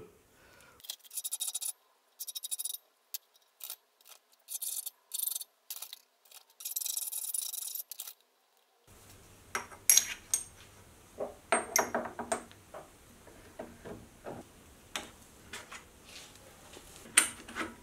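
Short scraping rubs of steel on steel, then a handful of sharp metallic clinks and knocks as a 4140 steel block and parallels are handled and set in a milling-machine vise.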